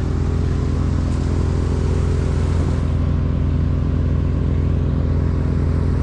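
Wood chipper's engine running steadily at high speed, an even, unchanging drone.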